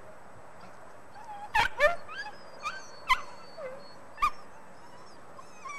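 Wolf-hybrid puppies yelping and whimpering: a string of short, high yelps, some sliding up or down in pitch, from about a second and a half in to just past four seconds, with another yelp starting right at the end.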